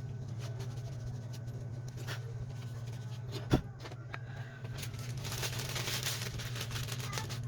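Small clicks and scraping from hand tools working on a smartphone during disassembly, with one sharp click about halfway through and a stretch of scratchy scraping near the end, over a steady low electrical hum.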